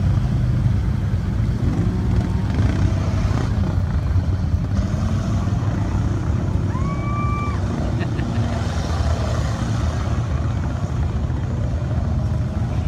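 SHERP amphibious ATV's engine running steadily as it crawls through shallow muddy water, with other off-road vehicle engines around it. A brief high tone sounds about halfway through.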